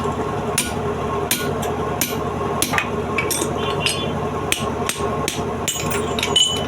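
Hammer blows struck about once every half second to a second, some leaving a short high ring, over a steady low mechanical hum.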